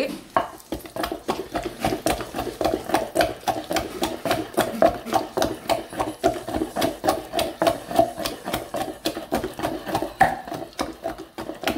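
Wooden pestle pounding wet chutney paste in a stone mortar, a steady rhythm of dull strokes about three a second. The roti pachadi is nearly ground to its finished texture.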